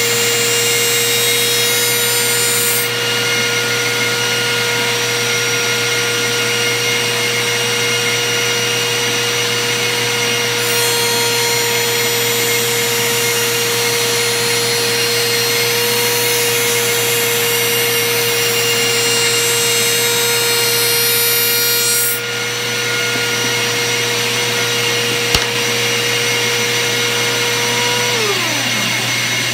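Table-mounted router motor running at a steady high pitch together with a shop vacuum on the dust-collection hose. About a second and a half before the end the router is switched off and its pitch falls as it spins down, while the vacuum keeps running.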